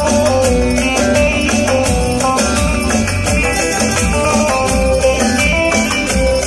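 Instrumental music in a Turkish folk-pop style: a melody line over a strong bass and percussion keeping a steady beat.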